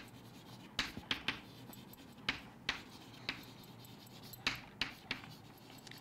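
Chalk writing on a chalkboard: faint, irregular taps and short scratches as words are written out.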